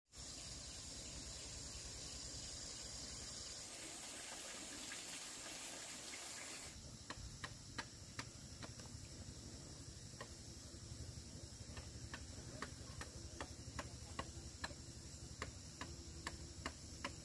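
Soft steady hiss of light rain for the first several seconds. After that come sharp, irregular ticks, about two or three a second, of hand tools striking the burned hillside soil to make planting holes for dry-land rice.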